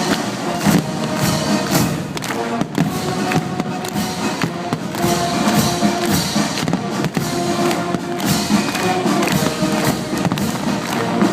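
Fireworks bursting in a rapid, irregular string of bangs over loud music from the show.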